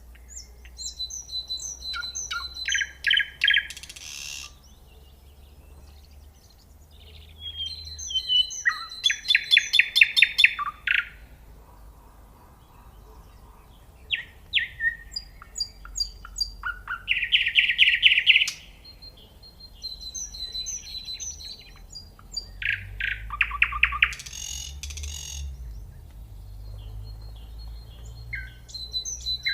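Common nightingale singing: phrases a few seconds long, each made of rapidly repeated notes and fast trills, separated by pauses of a couple of seconds.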